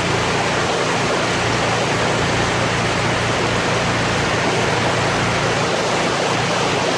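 Heavy downpour of rain: a loud, steady hiss of falling rain that holds unchanged throughout.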